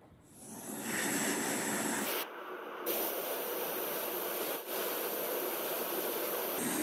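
Handheld gas blowtorch burning with a steady hiss as its flame heats the tip of a spring-steel chisel blank to red heat for hardening. The hiss starts about half a second in and dips briefly a little after two seconds.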